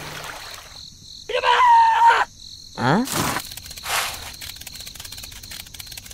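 Comic voice sound effects: a held, wavering cry about a second in, then a quick rising whoop near the three-second mark, over a faint steady high-pitched whine.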